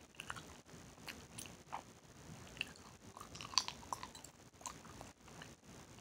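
Hubba Bubba bubble gum being chewed with open-mouth smacking close to the microphone: irregular wet clicks and snaps, the sharpest about three and a half seconds in.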